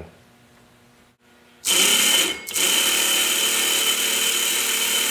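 Home-built 12 V electric chainsaw's DC motor spinning the chain around the bar on its first test run on battery power. It starts about a second and a half in, cuts out briefly, then runs steadily with a high whine over the chain's rattle.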